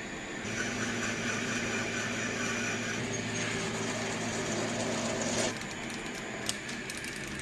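Electric motor of a workshop power tool running steadily with a hum and hiss. Its sound shifts about half a second in and again about five and a half seconds in.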